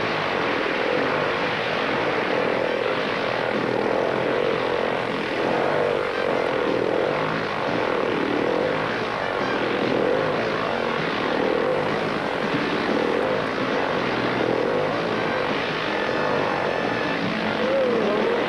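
Motorcycle engines running and revving inside a steel mesh globe of death, the engine note rising and falling.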